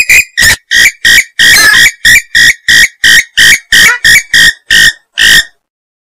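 Swamphen (mandar biru) giving a loud, rapid series of short harsh calls, about three a second, one a little longer in the middle, stopping shortly before the end. This is a breeding-season lure call.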